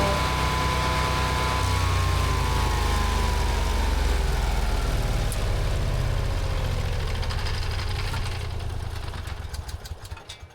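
MechMaxx B200 wood chipper running with a steady low engine sound and a whine that falls slowly in pitch over several seconds, as the machine winds down. It fades away near the end.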